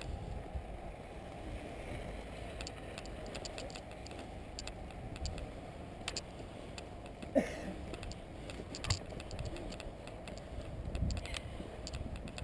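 Low rumble of wind and handling noise on a moving GoPro action camera, with scattered irregular clicks and two louder knocks, about seven and a half and nine seconds in.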